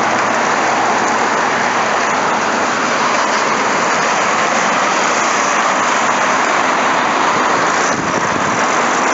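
Road traffic passing on a busy street, a steady wash of tyre and engine noise.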